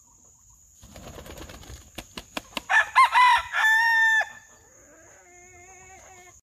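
Polish rooster crowing once, a loud cock-a-doodle-doo in several parts about three seconds in, ending in a long held note. A run of sharp taps comes just before it, and a thin steady high whine sits underneath.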